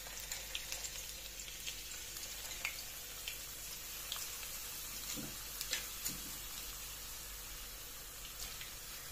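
Raw potato wedges frying in hot vegetable oil in a shallow pan: a steady sizzle with scattered small crackles as the wedges are laid in.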